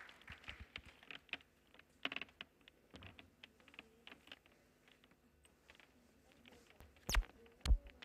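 Scattered faint clicks and taps, then two loud sharp knocks about half a second apart near the end.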